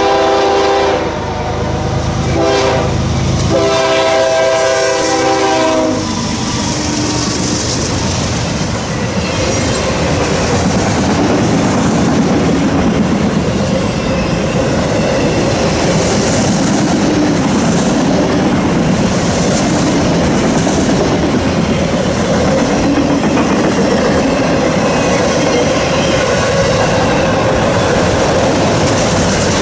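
A CSX diesel freight locomotive sounds its horn in several blasts, the last and longest ending about six seconds in. Then a long train of autorack cars rolls past with a steady rumble and the clickety-clack of wheels over rail joints.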